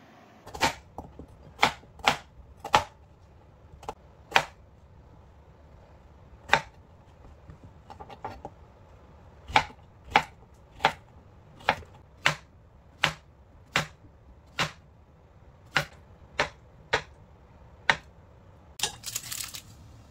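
Kitchen knife chopping on a cutting board: about twenty single, unhurried knocks at an uneven pace, with a gap of a few seconds midway. A brief rustle comes near the end.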